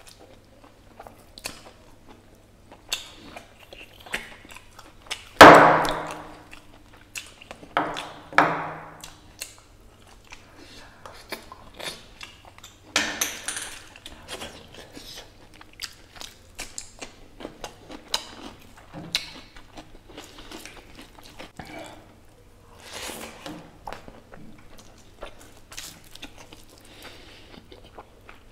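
Close-miked eating of mutton marrow-bone curry and rice by hand: steady wet chewing and mouth clicks, with loud slurps from sucking marrow out of the bones, the loudest about five and a half seconds in and others near eight and thirteen seconds.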